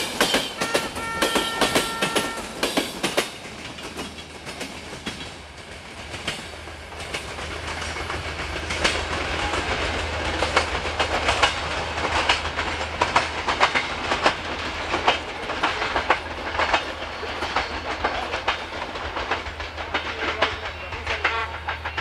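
A passenger train's wheels clattering over rail joints as the carriages pass close, with a few steady high tones over the clatter for the first two seconds or so. From about three seconds in, a diesel-hydraulic locomotive's engine hums steadily, with repeated wheel clicks over the track.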